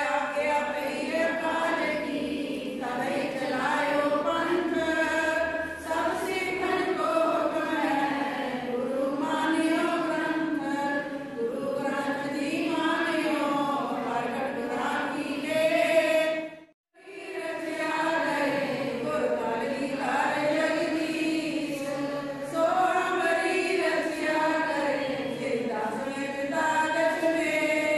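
A group of women chanting a Sikh hymn together, slow and melodic, with the pitch rising and falling. It breaks off to silence for a moment about two-thirds of the way through, then resumes.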